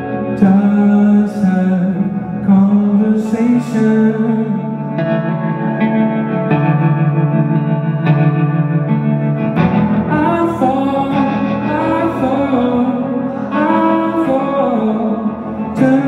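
Live solo performance through a PA: a man singing long, wavering held notes over a strummed guitar. The sound is heavily reverberant, like a large hall. He sings near the start and again from about ten seconds in, with steadier held guitar chords between.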